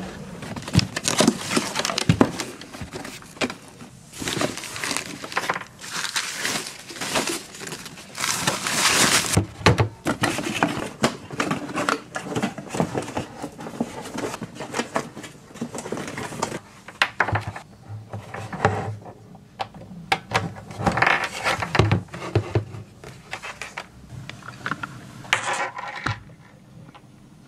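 Korg Monologue analog synthesizer making noisy, crackling, glitchy sounds in irregular bursts and clicks, with a few low notes and a short falling sweep near the end.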